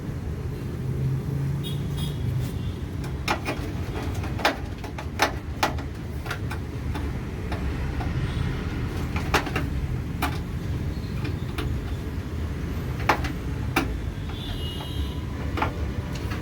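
Scattered sharp clicks and light knocks of a screwdriver and screws on a metal PC case as the motherboard is screwed in, about ten in all, over a steady low background rumble.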